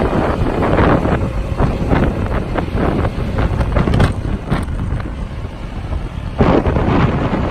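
Wind buffeting the microphone in uneven gusts over the running engine of a 2011 International Durastar bucket truck as its Altec boom is operated.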